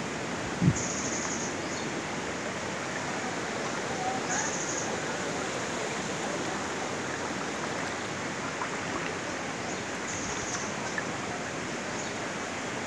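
Steady rush of flowing floodwater, with a brief low thump under a second in and a few short, high chirps.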